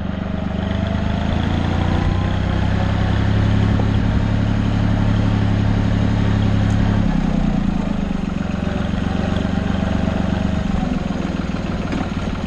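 Farm tractor's diesel engine running steadily, its note changing slightly about seven seconds in.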